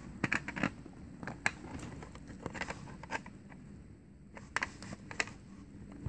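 Small hard-plastic toy parts clicking and tapping as a Barbie toy refrigerator's juice pitcher is fumbled into place and snapped on by its prong. The taps come irregularly, a dozen or so scattered over the few seconds, over a faint steady low hum.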